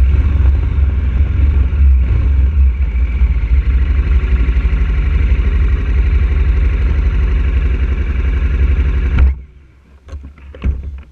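KTM 1190 Adventure's V-twin engine running steadily at low revs, then shut off abruptly about nine seconds in; a few faint clicks and knocks follow.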